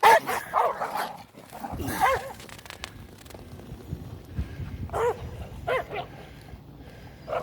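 Short dog barks coming in scattered bursts: a few at the start, a couple about two seconds in, a pair around five to six seconds in, and one more at the end.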